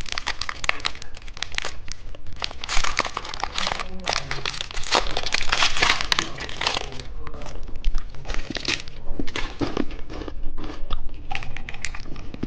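Candy wrappers crinkling and tearing as they are handled and opened, an irregular run of crackles.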